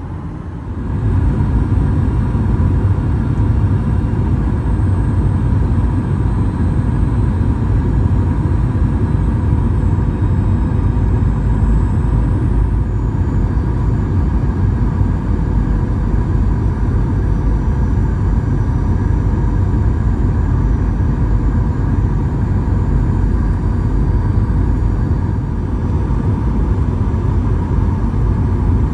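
Steady cabin noise of a Boeing 737-800 on its descent: a loud low rumble of airflow and its CFM56-7B jet engines, with a faint steady whine on top. It gets louder about a second in and stays even after that.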